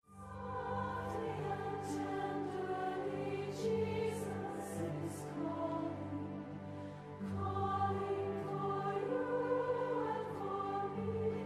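A choir singing a hymn in long held notes. It starts suddenly right after a brief silence.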